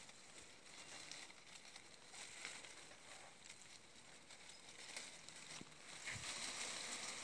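Faint outdoor ambience: an even, steady hiss with a few faint clicks, growing a little louder about six seconds in.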